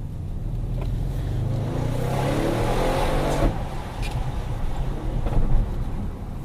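Audi RS6 C7 Performance's 4.0-litre twin-turbo V8 pulling hard, its pitch rising for about two and a half seconds before the note drops off sharply about three and a half seconds in. A few sharp cracks follow as it carries on at a lower pitch.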